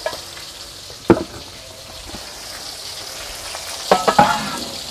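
Metal ladle-strainer knocking and scraping against a cooking pot as boiled young jackfruit is scooped out, over a steady sizzling hiss from the pot on the wood fire. One clink comes about a second in and a quick cluster of ringing clinks near the end.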